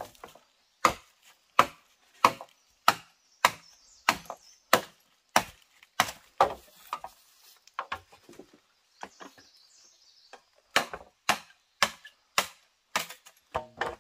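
Chopping wood, a sharp stroke about every two-thirds of a second. The strokes pause for about two and a half seconds past the middle, then resume.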